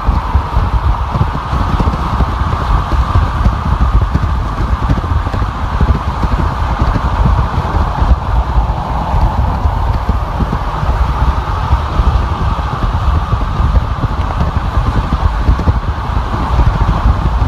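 Steady road noise of a car driving at freeway speed: a constant deep tyre rumble with a whooshing hiss of wind and traffic over it, unbroken throughout.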